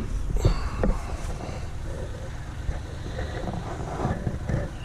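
A machine's engine running steadily at low speed, with two sharp knocks in the first second.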